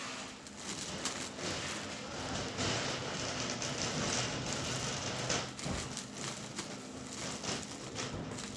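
Plastic-wrapped towel packs rustling and crinkling as they are handled off a conveyor belt and packed into a cardboard carton, loudest in the middle. A steady low machine hum runs underneath.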